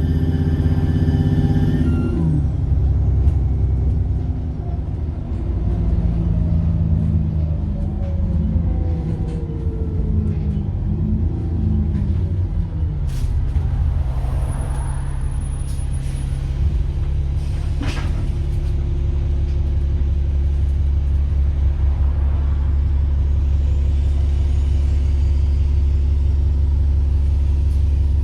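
Diesel bus engine with a high turbo whine that falls away about two seconds in as the throttle is released. The engine note then falls as the bus slows, and from about halfway it idles steadily. A few sharp clicks and hisses from the air system come in the second half.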